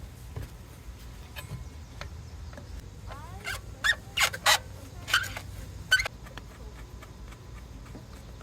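Several sharp clicks and metallic knocks between about three and six seconds in, over a steady low hum: hand tools at work refitting a car's oxygen sensor with a special socket.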